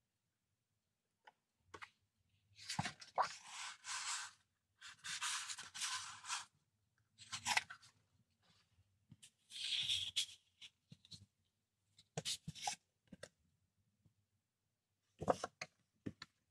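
Large sheets of patterned scrapbooking paper sliding against each other and being flipped over: a run of rustling swishes, the longest in the first half, then shorter ones with a few light taps between.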